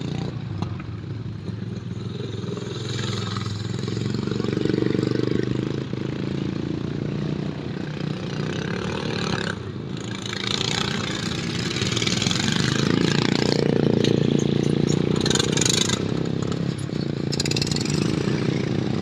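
Racing ride-on lawnmower engines running, their note rising and falling, growing louder around five seconds in and again from about thirteen to fifteen seconds.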